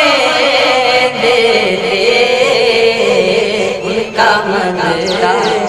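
Two young male voices singing an Urdu naat, drawing out long melodic notes, with a brief break and fresh phrase about four seconds in.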